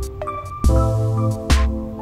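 Background music with a steady beat: a drum hit a little under once a second over held notes and a bass line.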